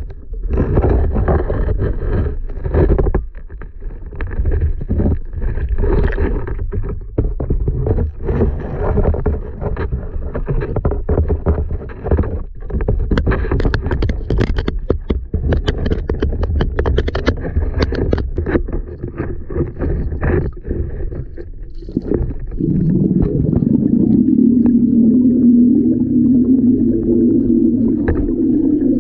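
Muffled underwater knocks, scrapes and rumbling picked up by a submerged camera as it moves and bumps about. About three-quarters of the way through, a steadier, louder low hum takes over.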